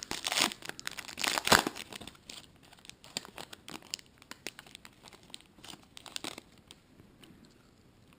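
Trading-card pack wrapper being torn open and crinkled by hand. The crackling is loudest in the first couple of seconds, then turns into lighter rustling that dies away about six seconds in.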